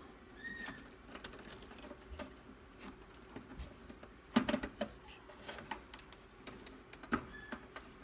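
Alienware Aurora R6's black plastic graphics-card support bracket being handled and fitted back into the case: scattered light plastic clicks and taps, with a louder cluster of clicks about halfway through and another near the end.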